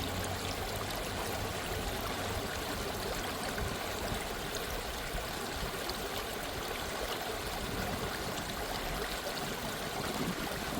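Small waterfall, water flowing and splashing steadily, with no music over it.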